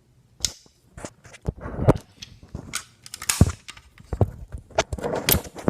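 Irregular sharp clicks and clacks from a BG-12 manual fire alarm pull station being handled and its switch worked, growing louder in the second half.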